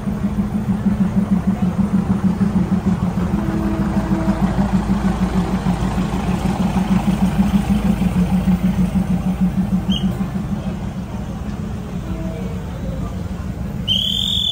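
Diesel train engine running with a steady low throb that pulses several times a second, easing off after about ten seconds. A couple of short high chirps near the end.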